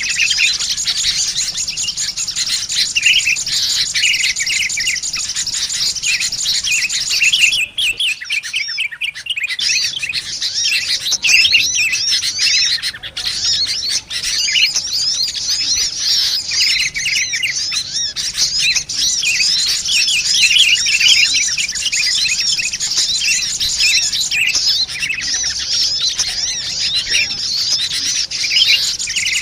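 Dense, busy chorus of small birds chirping rapidly in a bird-lure recording that mixes sunbird calls with noisy sooty-headed bulbul calls. There is a brief break about eight seconds in.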